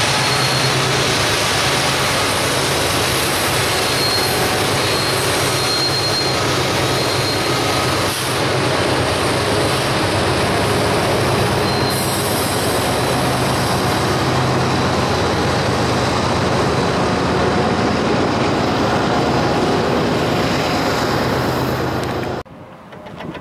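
BNSF freight train passing close by: the diesel drone of its trailing locomotives, then the steady rumble and clatter of double-stack container well cars rolling over the rails, with a faint high wheel squeal now and then. The sound cuts off abruptly near the end.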